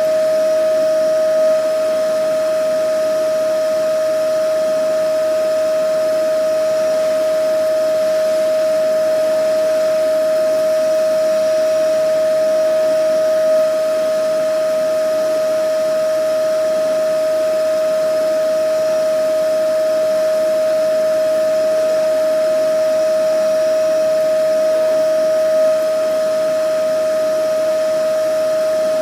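Vacuum cleaner running steadily: a constant high motor whine over an even airy rush, with a slight swell in loudness about every twelve seconds.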